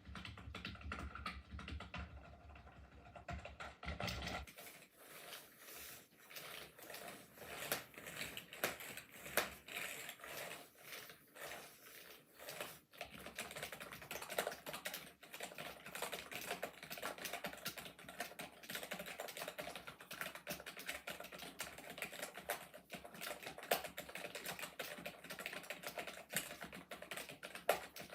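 Continuous fast typing on a Century Pro Game budget keyboard, a dense clickety-click patter of key presses. A low hum under the typing stops about four seconds in.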